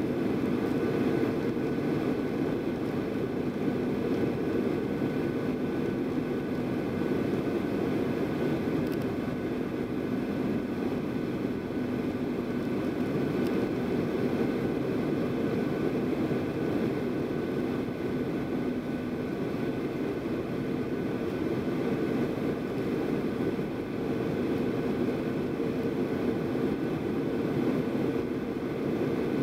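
Steady cabin drone inside a Boeing 737-800 descending on approach to land, from its CFM56-7B turbofan engines and the air rushing past, with a few faint steady tones.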